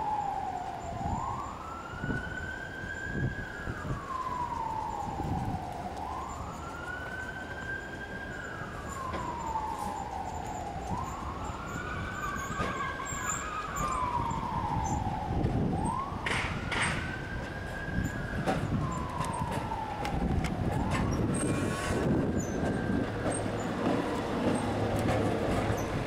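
Siren wailing, its pitch sliding slowly up and down about every five seconds, over steady street traffic. A low rumble builds near the end.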